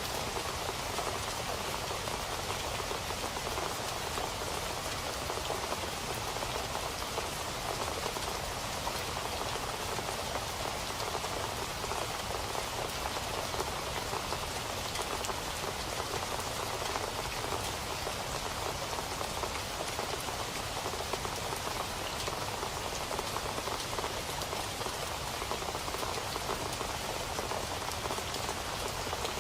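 Steady rain falling on a surface, a dense even patter of raindrops that holds constant without letting up.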